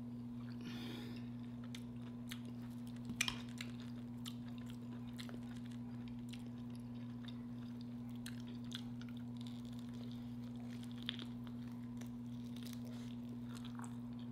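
Quiet, close-miked chewing of creamy garlic butter noodles: soft wet mouth clicks and smacks, with one louder click about three seconds in, over a steady low hum.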